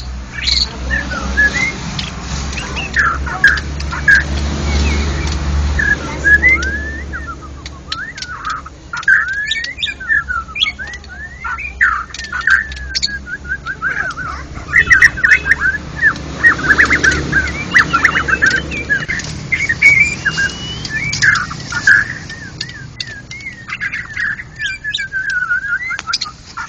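White-rumped shamas (murai batu) singing a rapid, varied stream of whistles and chirps, many overlapping.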